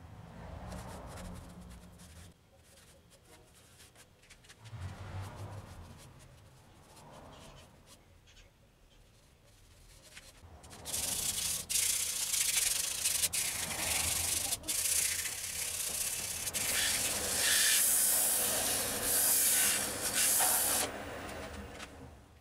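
A rag pressed against a wood-and-resin hollow form spinning on a lathe, rubbing in sanding sealer as a primer coat. Quiet handling and light rubbing at first, then, about halfway through, a loud steady friction hiss that cuts off near the end.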